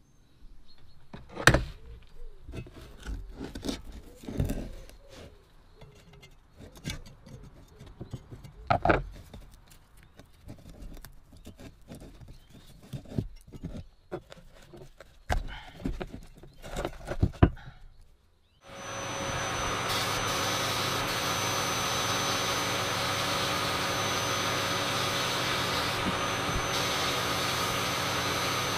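Rusty metal parts of an old Sheen flame gun being handled and dismantled: a series of knocks, clicks and scrapes. About 18 seconds in, a blast cabinet's abrasive-blasting nozzle starts and runs with a loud, steady hiss of compressed air and grit.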